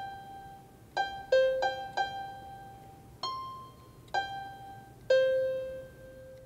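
GarageBand Grand Piano virtual instrument on an iPad playing eight single notes, one at a time and unevenly spaced, each struck and left to ring out. The notes are triggered from the PSoC 3 kit's CapSense touch buttons acting as a MIDI controller.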